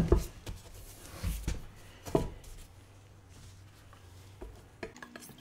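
Scooter wheel and tire being handled and moved on a wooden workbench: one loud thump right at the start, then a few softer knocks over the next two seconds and a couple of light clicks near the end.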